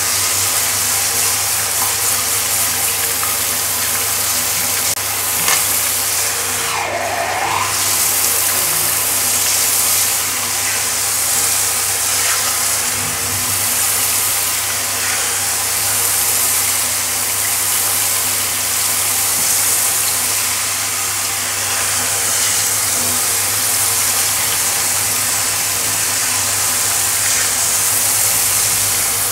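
Handheld pet-grooming shower head with a brush attachment spraying water onto a tiled floor: a steady hiss of running water over a low steady hum.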